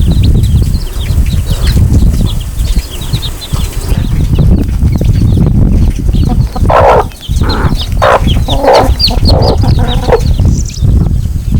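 Chickens clucking, with many short high chirps throughout and a run of about six loud calls from about seven to ten seconds in, over a heavy low rumble.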